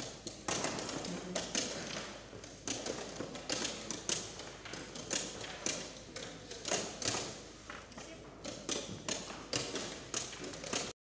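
Quick, irregular clacks of wooden chess pieces being set down on the board and the chess clock being slapped after each move in a fast blitz game, several a second. The sound cuts off suddenly near the end.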